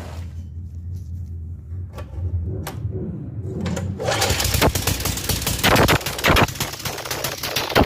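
Single-cylinder Tecumseh flathead engine idling low, then opened up about four seconds in, firing in a loud, rapid, choppy staccato.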